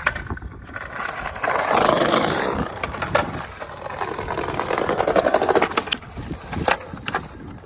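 Skateboard wheels rolling over rough ground, a grainy rumble that swells and fades twice, with a few sharp board clacks in between.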